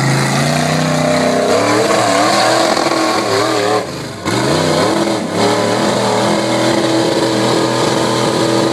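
Ford-powered rock-bouncer buggy's engine revving hard at wide-open throttle, its pitch rising and falling as it climbs a steep rock ledge. The engine drops off briefly about four seconds in, then comes back up.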